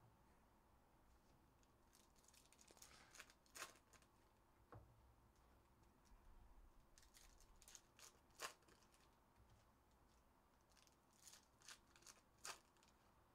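Faint tearing and crinkling of foil trading-card pack wrappers being ripped open by hand, in several short bursts of sharp crackles.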